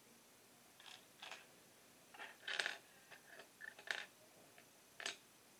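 Small plastic LEGO minifigure parts clicking and scraping as they are handled and pressed together: a handful of faint, scattered clicks, the loudest about halfway through.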